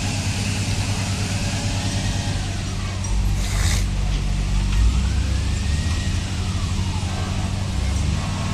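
An emergency vehicle siren wailing slowly up and down, each rise and fall taking about three seconds, over a steady engine hum that swells louder in the middle. A short hiss about three and a half seconds in.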